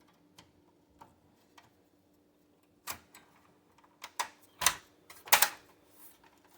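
Plastic and metal parts of an HP EliteDesk small-form-factor desktop case clicking and knocking as a part is pressed and snapped into place. There are a few faint ticks at first, then a cluster of sharp clicks from about three seconds in, the loudest just past five seconds.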